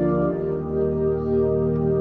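Soft ambient keyboard music of sustained, organ-like chords, shifting to a new chord shortly after the start.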